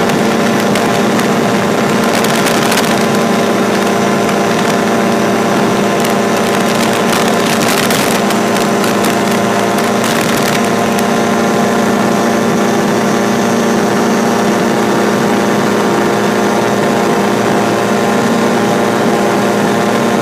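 A Drifter ultralight aircraft's engine runs steadily in flight at an even pitch. There are stretches of rushing noise about two seconds in and again from about six to eleven seconds.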